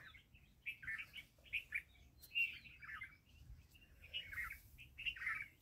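Small birds chirping in the background: a string of short, faint chirps coming every fraction of a second, with brief gaps.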